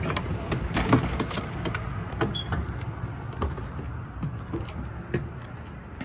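Footsteps climbing the entry steps into a motorhome: an irregular run of knocks and clunks, busiest in the first second and a half, then fewer and fainter.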